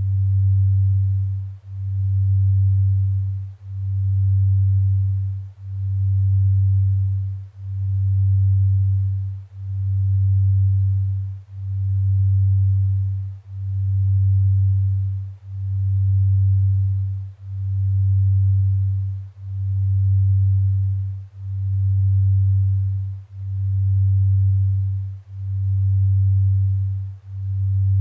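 Delta binaural beat: a low pure tone near 100 Hz swelling and fading smoothly about once every two seconds. The beat comes from two tones set slightly apart in pitch.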